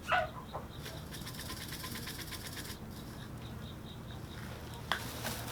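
A short falling chirp from a chicken, then a fine rapid rattle of crushed red pepper flakes being shaken from their container onto chicken feed for about two seconds, over a low steady hum, with a single click near the end.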